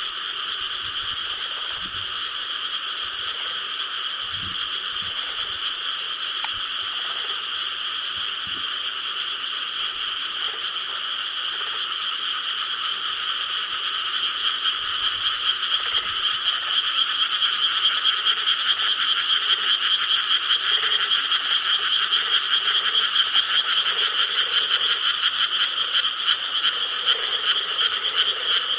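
A dense chorus of many frogs calling together, a continuous mass of overlapping croaks that grows louder about halfway through.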